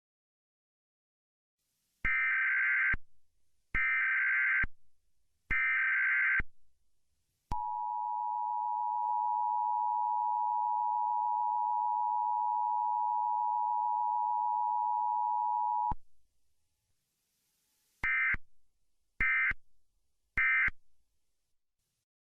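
Electronic beep tones: three long beeps about two seconds in, then one steady lower tone held for about eight seconds that cuts off suddenly, then three short, quick beeps near the end.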